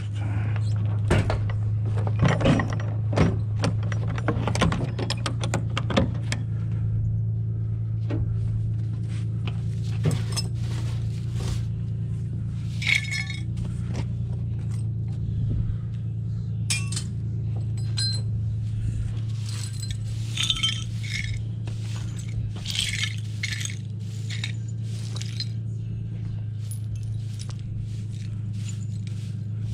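Shards of broken glass and small bits of scrap clinking and tinkling as they are swept with a straw broom over a pickup bed and the dirt behind it, the clinks thick in the first few seconds and scattered after. A steady low hum runs underneath.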